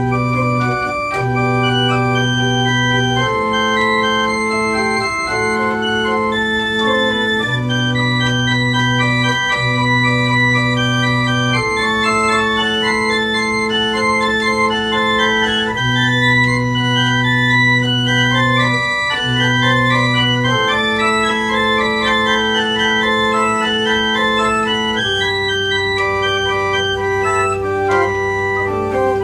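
Small pipe organ playing a slow piece: held low notes change every couple of seconds under moving upper voices, and near the end a lower bass note is sustained.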